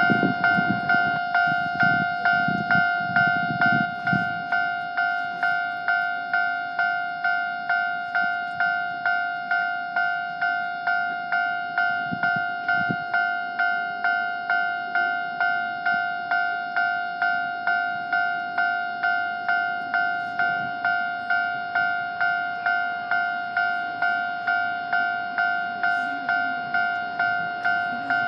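Japanese level-crossing electronic warning bell ringing in an even, repeating clang of about two strikes a second, the signal that a train is approaching. A low rumble fades out in the first few seconds.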